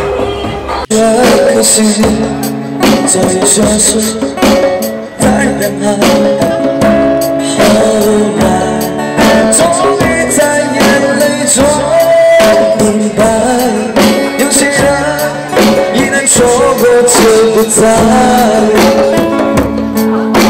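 Amplified street busking starting abruptly about a second in: a man singing to an acoustic guitar, with a djembe hand drum beating out a steady rhythm.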